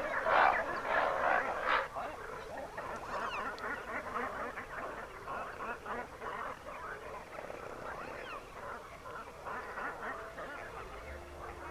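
A chorus of many waterbirds calling at once, a dense chatter of overlapping calls, loudest in the first two seconds and then thinner. Music comes in near the end.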